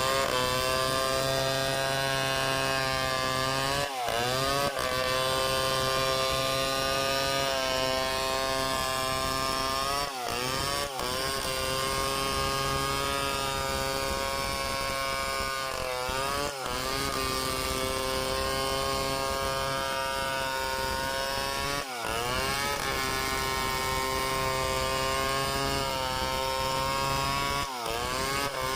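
Two-stroke chainsaw running at high revs, cutting wood. It holds a steady pitch, and about every six seconds the engine speed dips briefly and swings back up.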